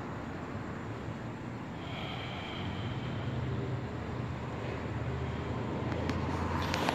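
Steady outdoor road noise with a low vehicle engine hum that grows louder through the second half.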